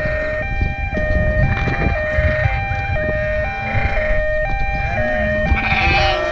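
A two-note tone alternating high and low about twice a second, like a hi-lo siren, over a steady low rumble. Sheep bleat several times through it, loudest near the end.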